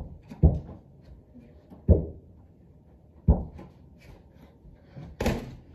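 Mini basketballs hitting the backboard and rim of an indoor arcade basketball hoop game: a series of dull thuds about a second and a half apart, the last one near the end the sharpest.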